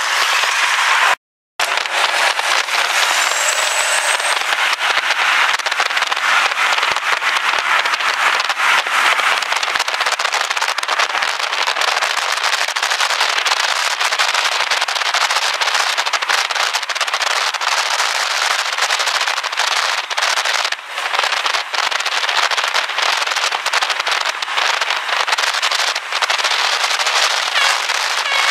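Loud, continuous crackling engine and exhaust noise from high-powered modified cars, dense with sharp pops, with a brief dropout just over a second in.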